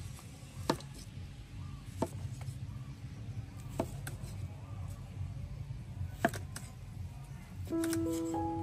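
A knife strikes a wooden chopping block a few times, single sharp knocks one to two seconds apart, over a low steady rumble. Soft melodic music comes in near the end.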